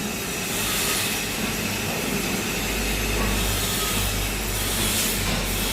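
Young-coconut peeling machine running steadily with a hissing whir, its low hum growing stronger about halfway through.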